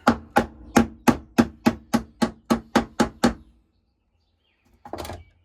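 A hammer tapping the lid back down onto a can of wood finish: about a dozen quick strikes at roughly three a second, each with a short ring, stopping after about three and a half seconds. A short, softer noise follows near the end.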